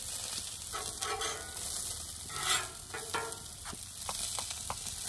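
Omelet and sausages sizzling on a hot Blackstone flat-top griddle, with metal spatulas scraping across the steel cooktop about one and two and a half seconds in, then several short clicks as they tap the surface.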